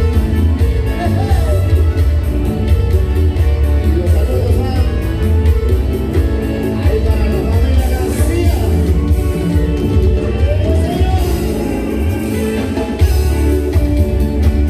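A live dance band playing with a sung vocal line over a strong, steady bass.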